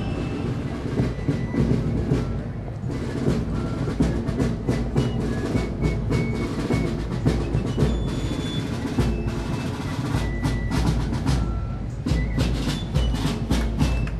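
Parade drums playing, with many sharp strokes and short high tones scattered through.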